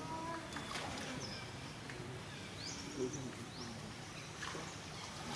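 Outdoor ambience: faint, indistinct voices low in the mix, several short high bird chirps and a few sharp clicks over a steady background hiss.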